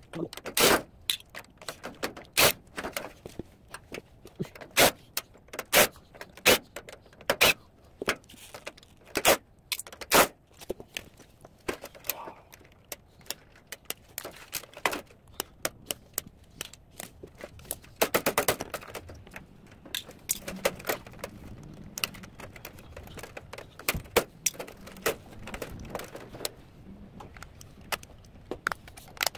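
Irregular sharp metallic clicks and clinks of wire cutters and pliers working on a sheet-metal light fixture, snipping wires and prying parts loose, with a short burst of denser rattling about 18 seconds in.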